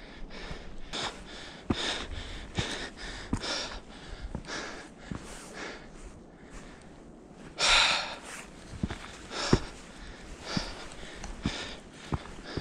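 A hiker breathing hard while climbing a stony mountain path, a quick breath about every half second, with a louder burst about eight seconds in and footsteps on stones in the second half. The heavy breathing comes from the effort of climbing at high altitude.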